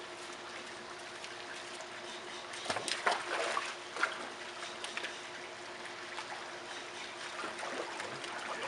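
Swimming-pool water lapping and splashing, with a run of louder splashes about three seconds in as a man wades into the pool carrying a puppy.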